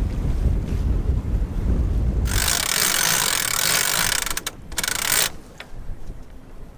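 Strong wind buffeting the microphone with a low rumble aboard a sailboat in high winds. About two seconds in, a loud hiss of rushing water or spray takes over, breaks off, returns briefly, and cuts off near five seconds.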